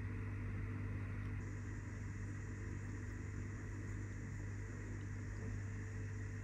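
Room tone: a steady low hum with a faint hiss, unchanging throughout, and no audible handling sounds.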